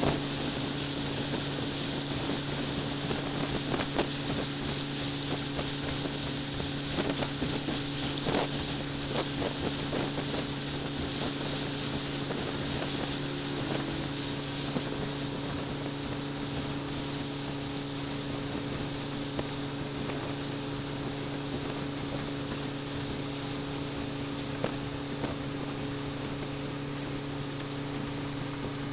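A small ferry boat's engine running steadily under way, a constant hum, with a few short knocks in the first half.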